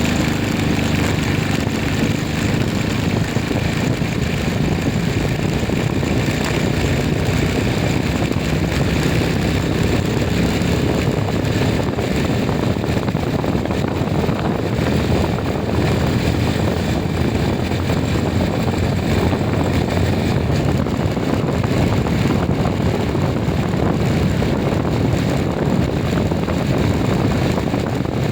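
A motor vehicle running steadily, mixed with steady wind and road noise.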